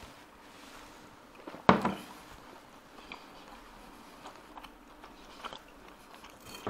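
A person eating at a table after a shot: chewing, with light clicks of a fork and glass, and one short, sharp, loud sound a little under two seconds in.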